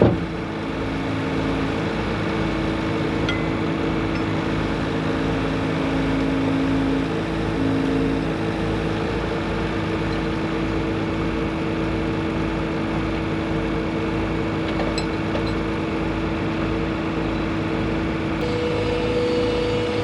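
Engine of heavy farm machinery running steadily, with a low, even throb and a steady hum over it.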